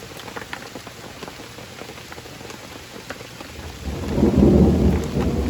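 Steady rain with scattered drops ticking, then a roll of thunder comes in about three and a half seconds in, a deep rumble that grows to the loudest sound and keeps rolling.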